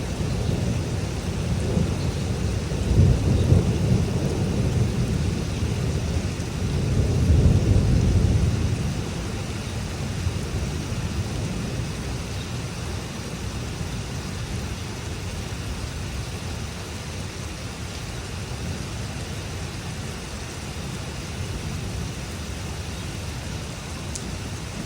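Heavy rain falling steadily, with a long roll of thunder rumbling through the first nine seconds or so, loudest about three and again about seven seconds in.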